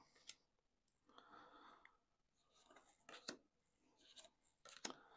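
Faint rustle of baseball cards being slid and flicked through by hand: soft rubbing swishes with a few light clicks as cards are moved to the back of the stack.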